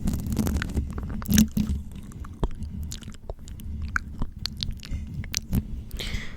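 ASMR mouth sounds: irregular lip smacks and small mouth clicks, with a short breath near the end.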